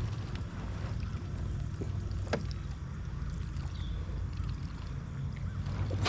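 Kayak sitting on the water: a steady low rumble of water and wind around the hull, with a sharp knock a little over two seconds in.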